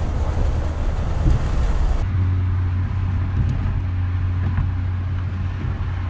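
Road and engine noise inside a moving Hyundai car's cabin at highway speed. About two seconds in, the rumble gives way to a steadier low hum.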